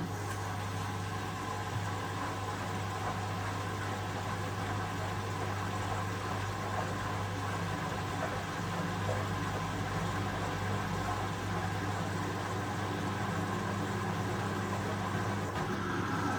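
Hoover Visiondynamic washing machine running a component test in service mode: a steady, low electric hum with buzzing overtones that switched on abruptly and holds level without rising or falling.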